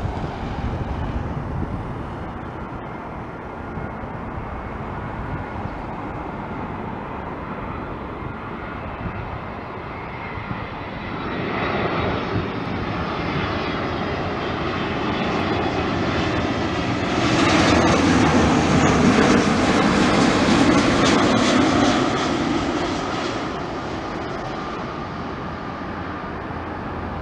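British Airways Boeing 777 twin-jet on final approach, its engines' rushing noise with a faint whine building to a peak about two-thirds of the way through, then dying down.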